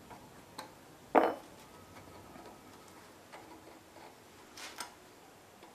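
A few light metallic clicks and a brief rattle of an Allen wrench and a sprocket on a mini bike jackshaft as a set screw is worked, the sharpest click about a second in.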